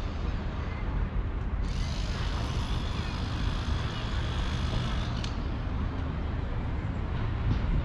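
City street traffic: a steady low rumble of passing vehicles, with a higher hiss that starts about two seconds in and cuts off sharply a few seconds later.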